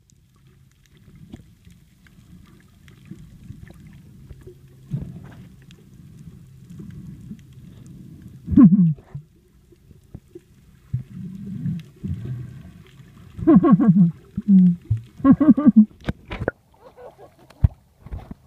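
Underwater sound from a submerged phone microphone: a steady low hum, with muffled, pitched voices through the water that bend up and down once about 8 seconds in and twice more later. A few sharp knocks come near the end.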